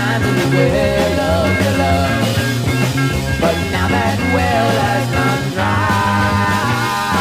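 Late-1960s psychedelic rock recording: full band instrumental passage with a lead line over bass and drums, no vocals yet.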